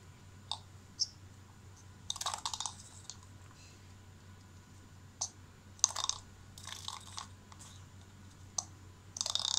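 Homemade spinning top of two plastic bottle caps on a toothpick, set spinning by hand on a marble floor: several sharp clicks and a few short rattling spins lasting under a second each, the loudest near the end.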